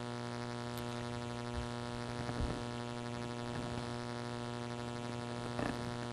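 Steady buzzing hum, unchanging in pitch, with a couple of faint soft knocks.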